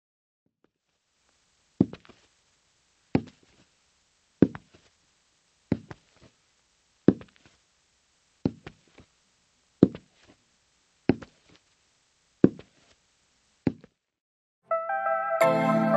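Slow, evenly paced footsteps of shoes striking a hard floor: ten sharp steps about 1.3 seconds apart, each followed by a fainter tap. Music fades in near the end.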